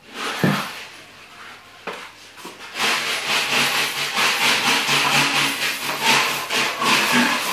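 Steel plastering trowel scraping wet plaster across a chimney breast wall in repeated strokes, starting about three seconds in. Before that, a couple of knocks as the trowel loads plaster from a bucket onto the hawk.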